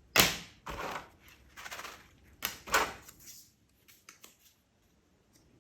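Packaging being handled during an unboxing: a handful of short rustles and scrapes, the first the loudest, followed by a few light clicks.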